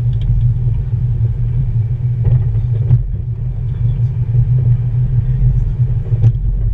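Steady low rumble of a car's engine and tyres heard from inside the cabin while driving, with a few faint clicks about two, three and six seconds in.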